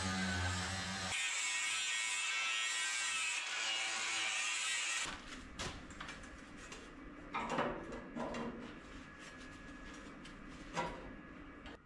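An electric power tool works sheet steel with a steady hum that turns into a harsh, high hiss, then stops suddenly about five seconds in. Scattered clicks and clanks of steel pieces being handled follow, with louder clatters twice.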